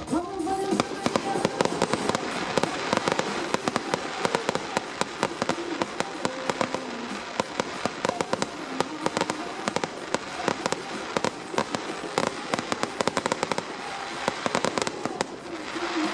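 Fireworks crackling: a dense, continuous rain of sharp pops and crackles from the aerial shells, with faint tones wavering underneath.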